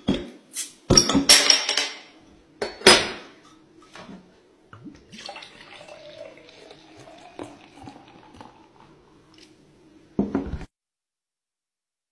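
Beer bottle opened with a metal bottle opener: sharp clicks and the cap popping off in the first three seconds. Then beer is poured into a stemmed glass with a steady fizzing hiss, and a short knock near the end.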